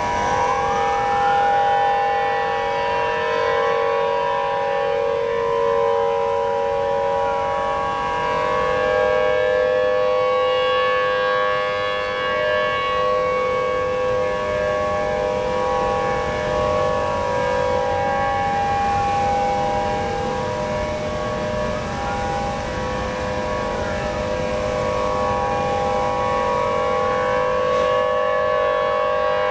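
Outdoor civil defense sirens sounding a tsunami warning: a steady wail of several overlapping tones held without a break. A fainter siren slides up and down in pitch now and then.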